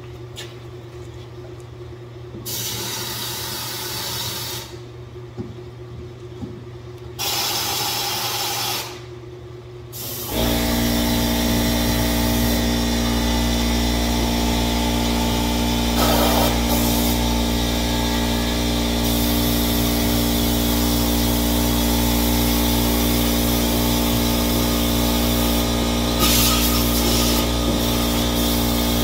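Air spray gun hissing in two short bursts as Krown undercoating oil is sprayed. About ten seconds in, an air compressor motor starts suddenly and runs steadily, with brief spray hisses over it.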